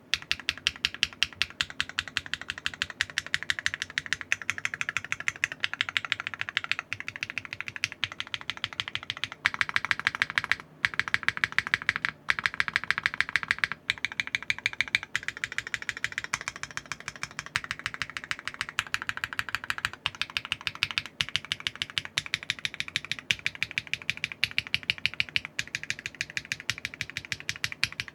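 Fast, steady typing on a Neo 65 mechanical keyboard with Keygeek Higanbana linear switches on a carbon fiber plate with no foams: a continuous run of clacky, high-pitched keystrokes, with a few short pauses.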